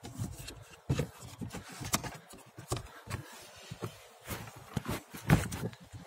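Irregular rubbing and light knocks of handling: hands and the phone moving against the hard plastic panels in the car's footwell, the loudest knock near the end.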